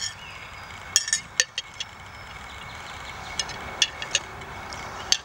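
A metal spoon clinking against a glass mason jar as green juice is scooped out: a few sharp, ringing clinks at irregular intervals, bunched around a second in and again past three seconds.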